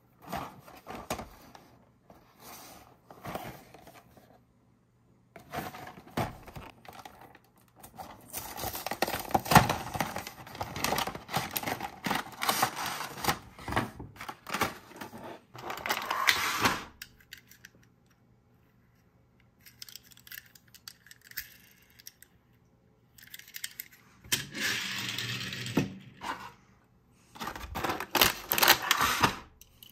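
Cardboard box and clear plastic blister tray of a Hot Wheels five-car pack being handled and opened by hand: crinkling, scraping and clicking in several bursts with pauses between them. The longest and densest burst comes about a third of the way in.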